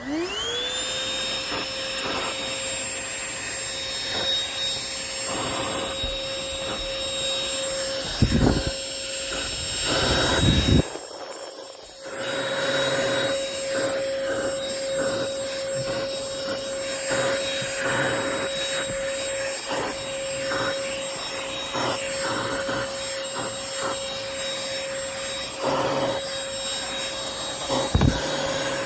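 Oraimo OHV-103 cordless handheld vacuum with its long crevice nozzle. It spins up at the start to a steady high whine while sucking up crumbs, with loud rushes of air about 8 and 10 seconds in. The motor stops briefly around 11 seconds in and then starts again.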